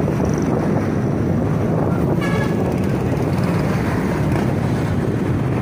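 Steady rush of wind and road noise from a Suzuki Smash 115 underbone motorcycle riding at speed, with a brief high pitched tone about two seconds in.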